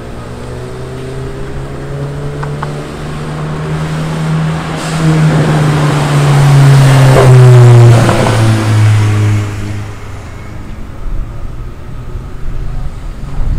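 KTM X-Bow race car driving past: its engine note swells to its loudest about seven seconds in, drops in pitch as the car goes by, and fades away.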